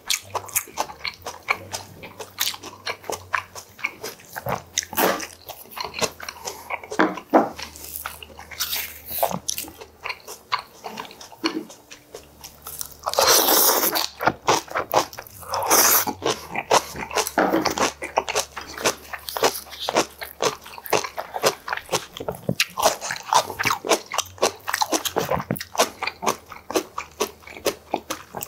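Close-miked eating: a person chewing and crunching mouthfuls of food, with a long loud slurp from a small bowl about halfway through.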